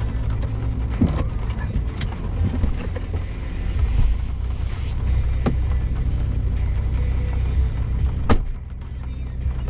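Vehicle engine and drivetrain droning low and steady, heard from inside the cab while driving off-road, with several sharp knocks and rattles from the body and suspension over rough ground; the loudest knock comes near the end.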